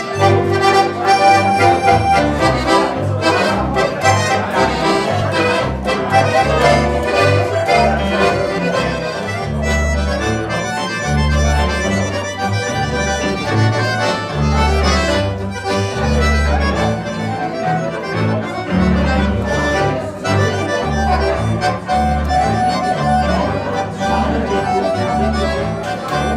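Live Swiss accordion folk music (Handorgel ensemble): several accordions playing a lively dance tune together over a double bass line of steady, evenly spaced bass notes.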